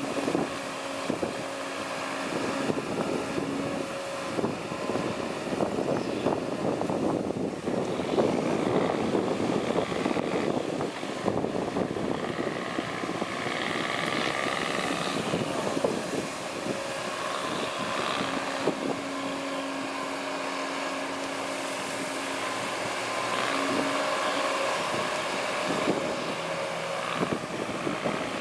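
Heavy diesel earthmoving machinery running steadily, with a constant engine hum and frequent knocks and rattles of the work.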